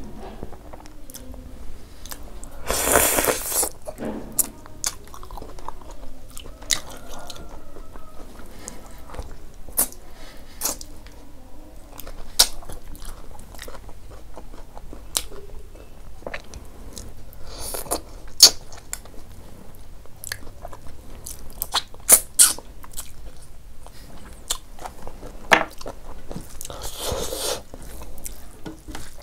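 Close-miked eating of rice, dal and curry by hand: wet chewing with frequent sharp mouth clicks and smacks, and some crunching. Two longer noisy rushes stand out, about three seconds in and near the end.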